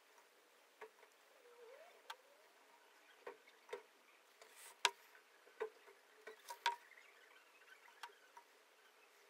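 Faint, irregular little clicks and taps of handling: a fine paintbrush and gloved hands working against a steel wrench lying on a wooden bench, about a dozen ticks with the sharpest near the middle, over a low steady hum.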